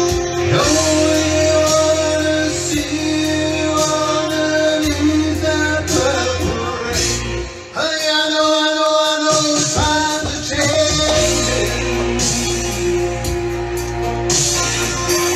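A man sings live into a microphone over backing music, in several phrases. Near the end he stops singing while the music carries on.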